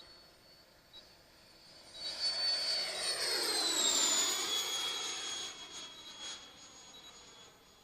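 A 145 mm electric ducted fan on a large RC jet makes a pass: its high whine and rushing air swell over about two seconds, the pitch drops as it goes by about four seconds in, and the sound fades away by about six seconds.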